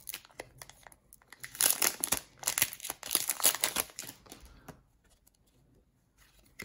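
Foil wrapper of a Pokémon XY Evolutions booster pack crinkling as it is torn open and the cards are pulled out. The loudest crinkling comes in bursts in the middle, then it goes quiet about two-thirds of the way through.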